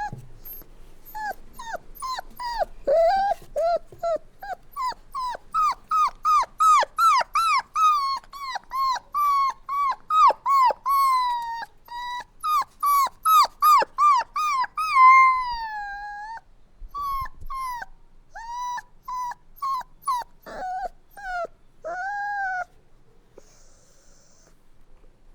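Puppy whining and crying: a rapid series of short, high-pitched yelps, several a second, each bending down in pitch, followed by fewer, longer whines that stop about three seconds before the end.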